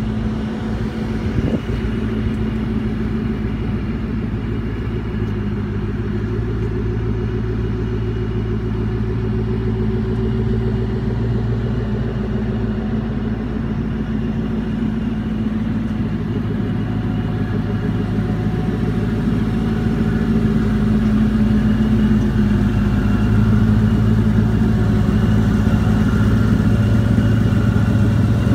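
Superformance Mark III Cobra's 5.0-litre Ford Coyote V8 idling steadily, growing a little louder over the last several seconds.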